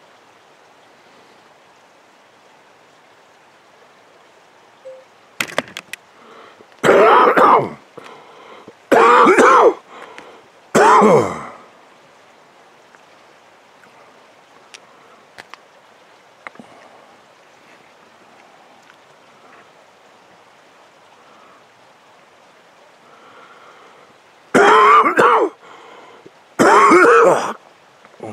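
Red deer stag roaring in the rut: three loud, deep roars about two seconds apart, then two more near the end.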